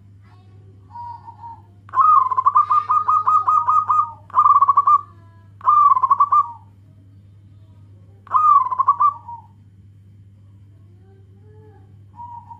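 Zebra dove (perkutut) cooing: a soft coo about a second in, then a long loud phrase of rapid rolling notes, followed by three shorter rolling coos a second or two apart and a faint coo near the end. A steady low hum lies under it.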